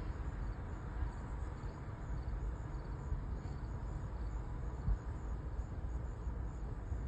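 Night street ambience: a steady low rumble with faint, evenly repeating high cricket chirping over it, and a single soft bump about five seconds in.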